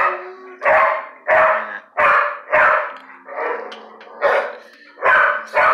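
A dog barking over and over, short loud barks about one to two a second, around nine in all.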